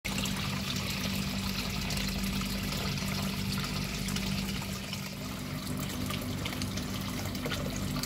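Water falling in a sheet from a PVC-pipe waterfall spout and splashing steadily into a koi pond, with a low steady hum underneath.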